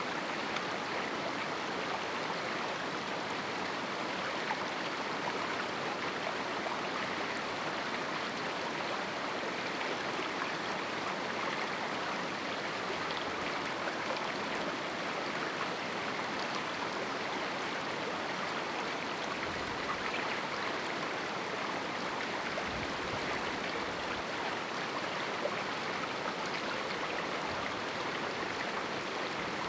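A small river running over rocks in a canyon: a steady, even rush of flowing water.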